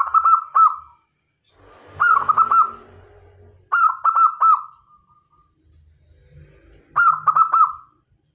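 Zebra dove (perkutut lokal) singing its rolling cooing song. There are four short phrases, each a quick run of three or four coos, about two seconds apart.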